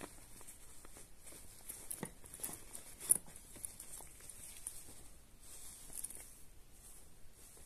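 Soft rustling of a white fabric zippered pouch being unfolded and stretched out by gloved hands, with scattered small clicks and one sharper click about three seconds in.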